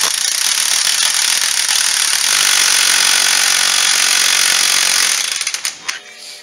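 Impact wrench hammering continuously through a long extension on the drive clutch bolt of a seized Polaris 400 two-stroke ATV engine, stopping a little over five seconds in.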